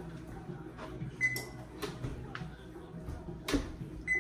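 Kitchen clatter at the stove: several light knocks and clinks of utensils and dishes, the loudest about three and a half seconds in, over a low steady hum. There are two short high pings, about a second in and near the end.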